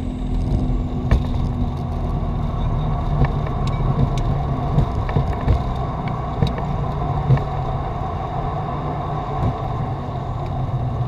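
Flight-deck noise of a Dassault Falcon 50EX business jet rolling out on the runway after landing: a steady, dense rumble and hum, broken by irregular sharp knocks and rattles about every second or so.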